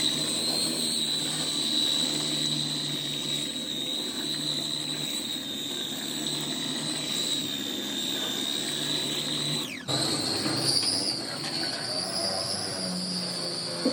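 Foam-making factory machinery running, with a steady high-pitched whine over a hiss and a low rumble. The sound breaks off and resumes slightly changed about ten seconds in.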